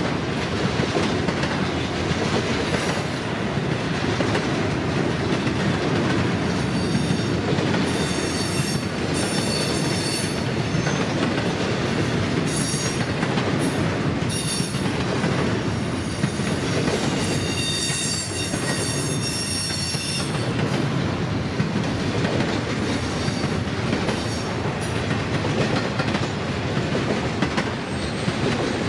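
Double-stack container freight train rolling steadily past: wheels clicking over the rail joints, with several spells of high-pitched wheel squeal in the first two-thirds.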